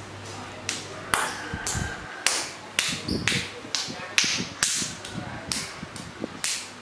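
A run of sharp taps or claps, a little over two a second, fairly even in pace.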